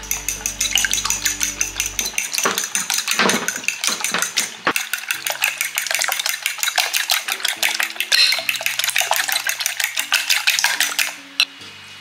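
Metal fork beating eggs in a glass bowl: rapid clinking and tapping of the fork against the glass, with the wet slap of the eggs, stopping near the end.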